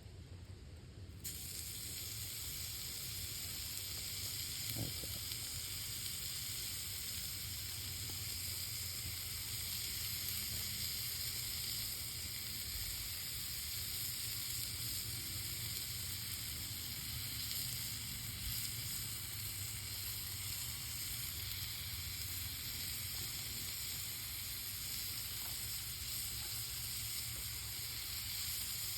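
Hamburger meat frying in a pan over campfire coals: a steady sizzle that starts suddenly about a second in and keeps on evenly.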